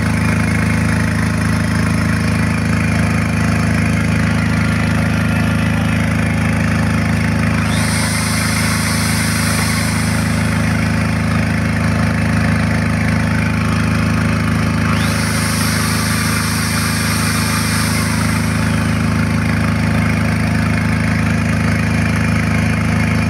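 Tsuzumi TDG 10000 SDV three-phase diesel generator set running at a steady speed, a constant low engine hum. Two spells of high-pitched hiss, each a few seconds long, come over it.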